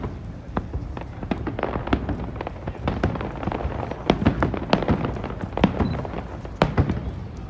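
Aerial firework shells bursting in a rapid, irregular string of booms and bangs, several a second at the busiest.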